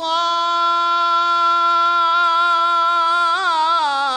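A man's solo voice singing an unaccompanied Damascene religious chant, a tasbih. He holds one long note, breaks into a wavering ornament about three seconds in, then steps down to a lower held note near the end.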